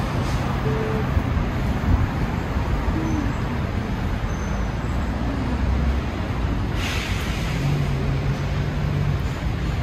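City street traffic: a steady rumble of cars on the road beside the sidewalk, with a brief hiss about seven seconds in and a low hum near the end.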